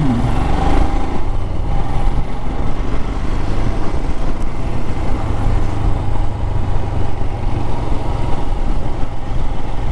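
Royal Enfield Himalayan's 411 cc single-cylinder air- and oil-cooled engine running steadily as the motorcycle rides along, mixed with road and wind noise.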